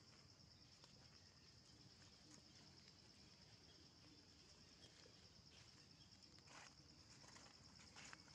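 Near silence: a faint, steady, high-pitched insect drone, with a few soft rustles of dry leaves in the last couple of seconds.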